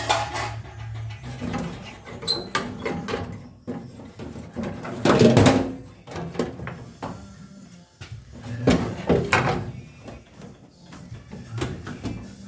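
A sheet-metal floor cover over a Jeep CJ5's transmission being worked loose and pulled out. It gives irregular metal clanks, knocks and scrapes, loudest about five seconds in and again about nine seconds in.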